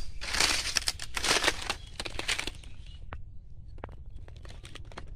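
Footsteps crunching and rustling through grass and dry leaves, loudest in the first couple of seconds, then dropping to a few scattered light clicks.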